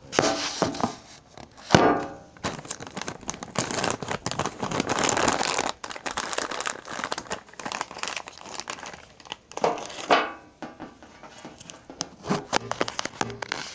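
Cough drop packet and wrappers crinkling and tearing as they are handled and opened, in irregular bursts.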